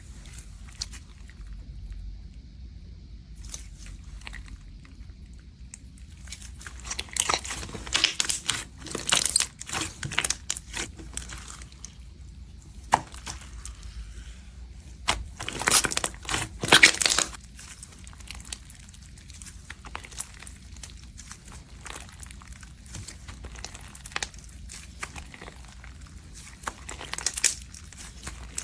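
Crunchy slime being squished and mixed by hand, giving a dense crackling and crunching. It comes in two louder stretches of a few seconds each, with softer crackles between.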